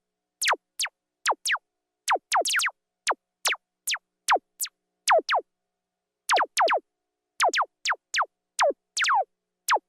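Synthesized laser-gun sound effect: short zaps that each sweep steeply downward in pitch, fired singly and in quick runs of two or three, with a pause of about a second near the middle.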